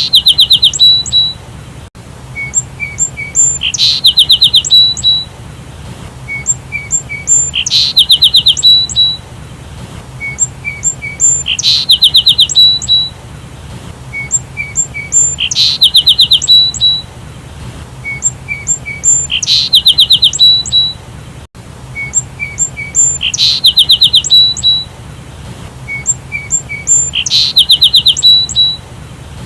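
Sparrow chirping in a phrase that repeats about every four seconds: a few soft short chirps, then a loud, fast run of chirps lasting about a second. A steady low hum lies underneath.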